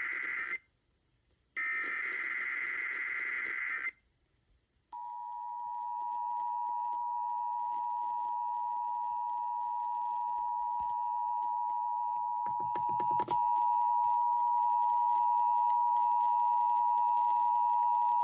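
Emergency Alert System signals on FM radio: the last two bursts of the digital SAME header, a buzzy data warble sent in repeated bursts with a one-second gap, end about four seconds in. After a second of silence, the steady two-tone EAS attention signal starts and holds, with a short patch of clicks a little past halfway. Together they open a statewide tornado-drill alert that doubles as the required monthly test.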